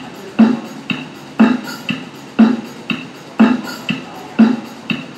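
Rock drum loop playing back from music software at 120 BPM: a steady beat with a strong low hit every second and a lighter hit between.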